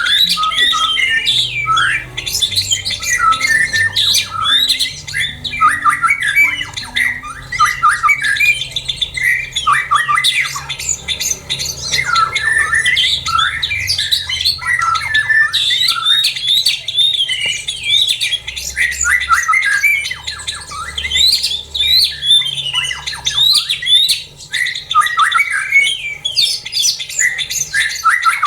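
Many caged songbirds in an aviary chirping and squawking at once: a dense, busy chorus of short overlapping calls and whistled glides.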